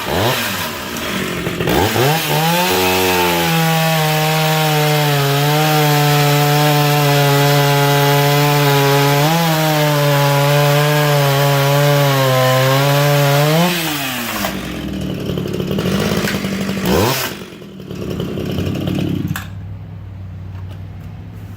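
Vintage two-stroke chainsaw cutting wood: it revs up, holds a steady pitch under load through the cut for about twelve seconds, then rises as it clears the cut and falls back toward idle, with one more short rev before it quietens near the end.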